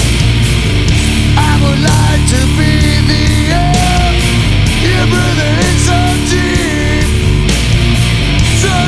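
Rock music with distorted electric guitar lines over bass and drums, without vocals.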